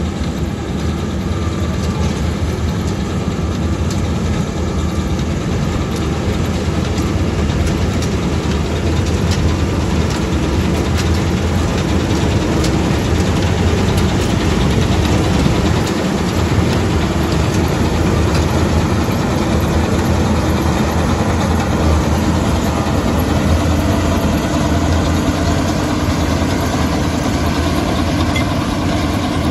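Kartar 4000 Crop Cruiser combine harvester running steadily while harvesting, its diesel engine and threshing machinery making one continuous heavy drone that grows a little louder as the machine draws near.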